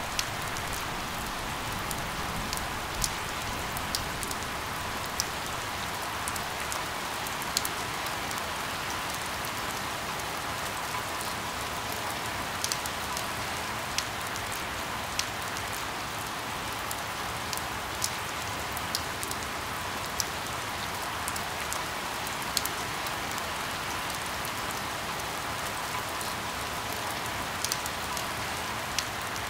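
Steady rain falling, with individual drops landing as sharp ticks at irregular intervals, one every second or two.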